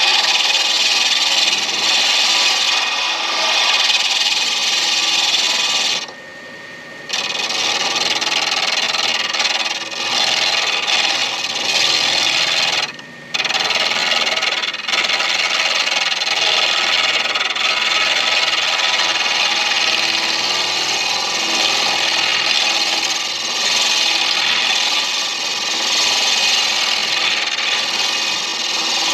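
A deer antler pen blank spinning on a midi lathe with a turning tool against it, a steady scraping rasp. It breaks off briefly twice, about six seconds in and again near thirteen seconds, as the tool is lifted away.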